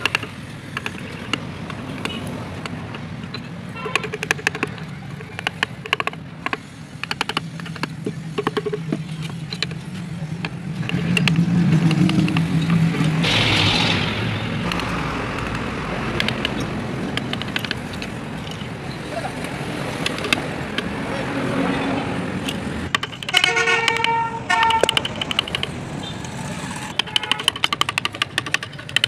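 Hand carving gouges and chisels cutting into wood, in many short clicks and scrapes, over steady traffic noise. A motor vehicle passes loudly about halfway through, and a horn sounds briefly about three quarters of the way in.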